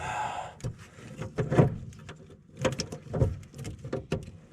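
Wrench work on the blade control cable's adjusting nut of an excavator: a short scraping hiss, then a handful of separate metal clicks and knocks.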